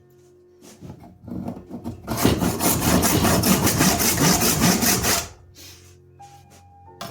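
Hand saw cutting a tang slot into a knife handle block: a few light strokes, then about three seconds of fast, steady back-and-forth sawing from about two seconds in, which stops abruptly.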